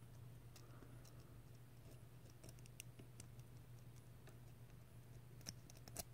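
Near silence with a steady low hum and faint, scattered small clicks of fingers handling a small metal RTA deck and its coil legs. Two slightly sharper clicks come near the end.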